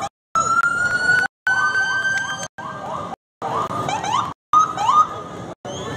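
Police car siren: a held, slightly rising tone, then runs of quick, short rising chirps. The sound cuts out completely for brief moments several times.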